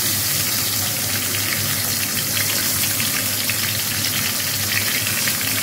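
Pieces of fish frying in hot oil in an aluminium wok: a steady sizzling hiss with fine crackles.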